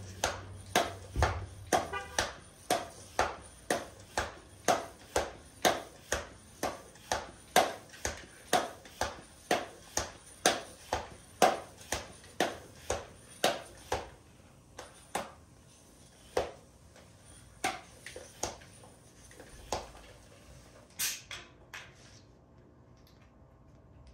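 Hand tyre pump being worked to inflate a bicycle tyre towards 65 PSI: rapid, regular pump strokes about two a second. The strokes slow and thin out about fourteen seconds in, and a sharp click comes near the end.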